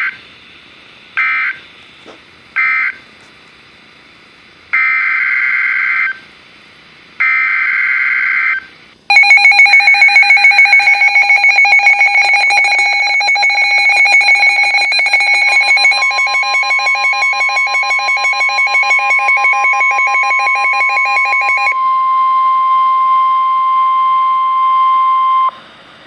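NOAA Weather Radio tornado warning alert: a few short digital SAME data bursts, then two longer ones. About nine seconds in, the weather alert radios' loud, rapidly pulsing alarm beeps go off. From about fifteen seconds the steady NOAA warning alarm tone sounds under them, and it continues alone after the beeps stop, until shortly before the end.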